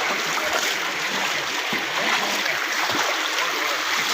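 Floodwater rushing past in a steady, even stream of flowing water.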